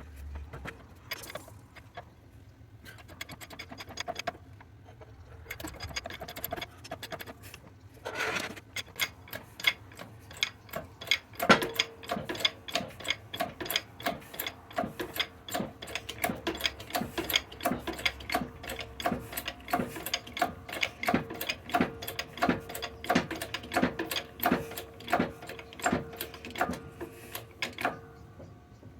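Air-powered shop press working in an even, rapid clicking of about three strokes a second, with a steady hum joining in a few seconds after the clicking starts. It is pressing a split bush into a bearing housing. A few scattered knocks come before the clicking starts, and the clicking stops shortly before the end.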